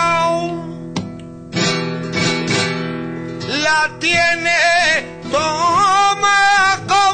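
Male flamenco singer singing with flamenco guitar accompaniment. Just after the start his held note ends and the guitar carries on mostly alone, then about halfway the voice comes back with wavering, ornamented phrases over the guitar.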